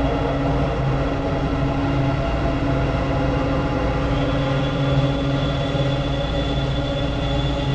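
Soma Labs Lyra-8 analog drone synthesizer playing a dense, noisy drone of many held tones over a low rumble, washed in added reverb; a high tone joins about four seconds in.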